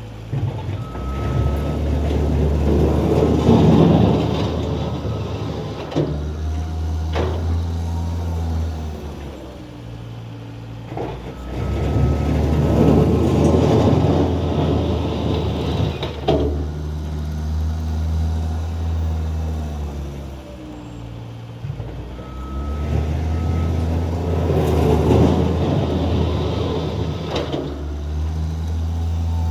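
Skid steer engine working in repeated passes, about three in all. On each pass the revs rise and fall, and a loud scraping of the blade over the pavement comes in. Brief high beeps come near the start of each pass, and a sharp knock comes near the end of each.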